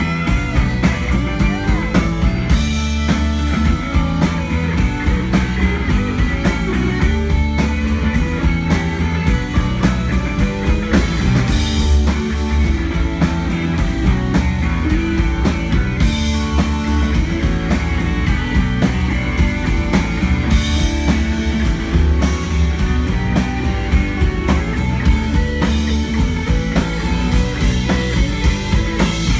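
Live rock band playing: electric guitar, electric bass and drum kit with a steady beat.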